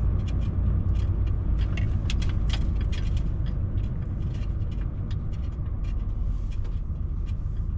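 Cab interior of a DAF truck driving slowly over a potholed road: a steady low engine and road rumble, with frequent sharp rattles and knocks from the cab as it jolts over the holes.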